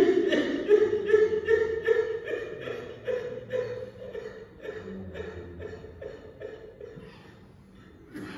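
A man's voice breaking into short, choked sobs, about two a second, that fade away over several seconds.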